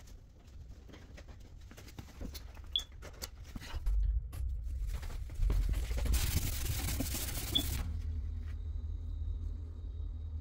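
Handling and rubbing noise from work in a cramped closet: scattered clicks and knocks, then a rubbing hiss lasting nearly two seconds starting about six seconds in. The air conditioner itself is not running.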